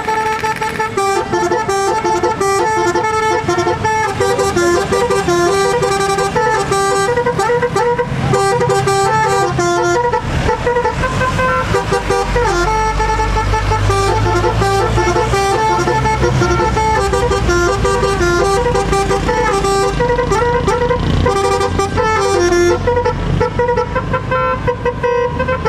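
A bus's multi-tone 'telolet basuri' air horn playing a tune, note after note. From about ten seconds in, a low engine rumble runs underneath.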